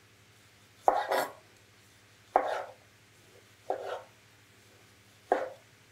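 Knife cutting on a cutting board: four separate strokes, each a sharp knock, about a second and a half apart.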